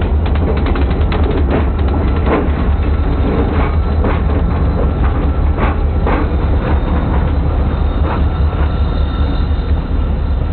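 Freight train rolling past over a grade crossing: a steady low rumble with irregular clicks and clanks of steel wheels on the rails, more frequent in the first few seconds.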